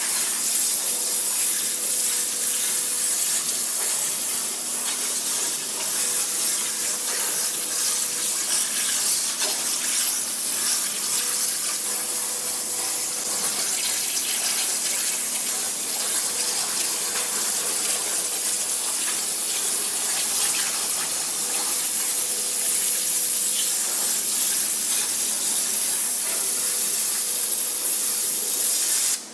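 High-pressure waterjet cutter's jet hissing steadily as it cuts through metal plate, with a faint steady hum underneath; the hiss cuts off suddenly at the very end.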